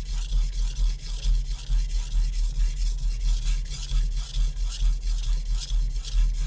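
A Shun Classic chef knife's VG-Max steel edge pushed and pulled across a wet 400-grit Naniwa Super Stone whetstone. It makes an even, rhythmic scraping of about three strokes a second.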